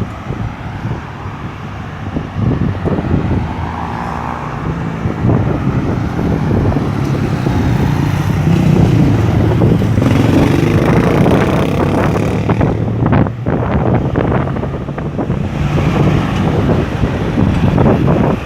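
Road traffic at a busy roundabout: cars passing with engines running and tyres on the road, getting louder about halfway through as vehicles pass close by.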